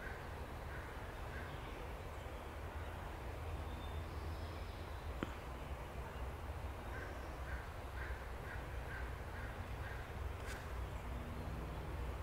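A bird calling in quick series of short repeated notes, about three a second, at the start and again for a few seconds past the middle, over a steady low rumble.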